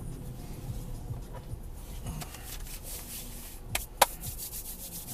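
Steady low road and engine rumble inside a moving car, with two sharp clicks in quick succession about four seconds in.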